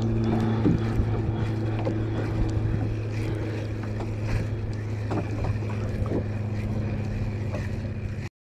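Small boat motor running with a steady low hum over wind and water noise, with a few light clicks. The sound cuts off abruptly near the end.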